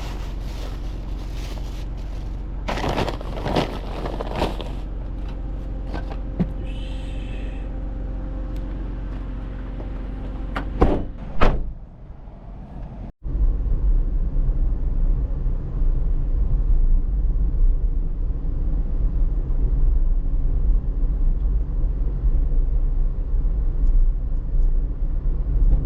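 A few knocks and door-like thumps, then a steady low rumble of a car on the move, heard from inside.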